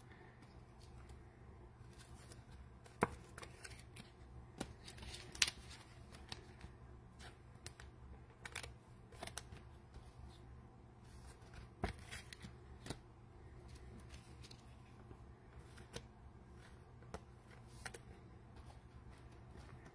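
Trading cards being slid by hand into plastic sleeves: faint rustling with scattered sharp little clicks, a dozen or so spread through, over a low steady hum.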